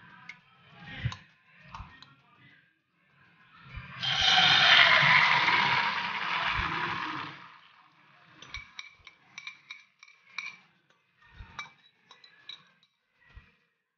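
Egg, noodle and vegetable batter poured into a pan of hot coconut oil, sizzling for about three and a half seconds. Then a fork scrapes and clinks against the glass bowl several times as the last of the batter is scraped out.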